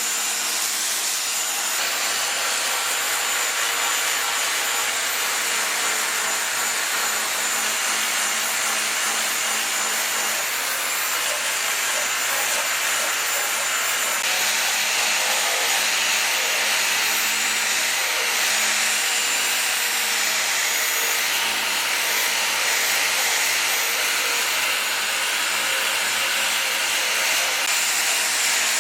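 Angle grinder running steadily against hard Caspian locust (Gleditsia caspica) wood, a continuous rasping noise with a high motor whine. It grows a little louder and brighter about halfway through.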